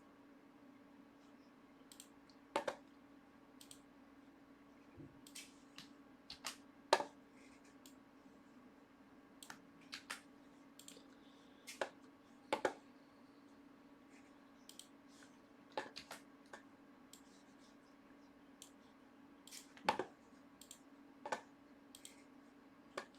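Computer keyboard and mouse clicks, scattered and irregular, a few every couple of seconds, over a faint steady electrical hum.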